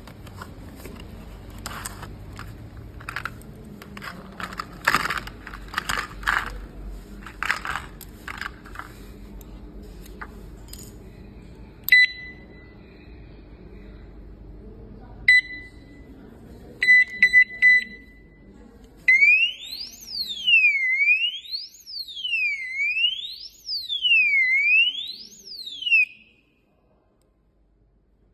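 Motorcycle brake-disc lock alarm. First comes handling clatter and clicks, then single high beeps, then a quick run of beeps. It then sounds its siren, which sweeps up and down about every two seconds for some seven seconds and cuts off suddenly.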